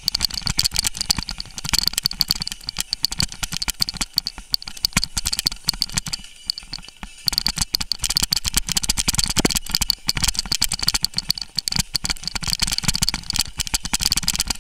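Mountain bike descending a rough gravel and dirt trail at speed: a dense, constant rattling and knocking of the bike over the stones. It eases briefly about six seconds in.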